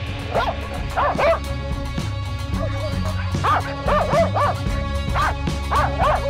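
West Siberian laikas barking in clusters of sharp yelps, baying on a bear during the chase, over background music with steady held notes and bass.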